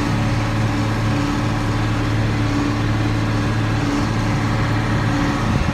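John Deere 4960 tractor's six-cylinder diesel engine running at a steady pitch under load, pulling a New Holland D800 big square baler while baling hay.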